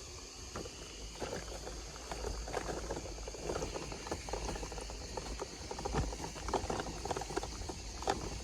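Footsteps crunching and rustling irregularly on a trail, over a steady high hiss.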